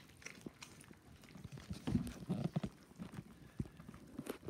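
A mother dog eating from a bowl among 22-day-old puppies. There are scattered clicks and small snuffling grunts, busiest about two seconds in.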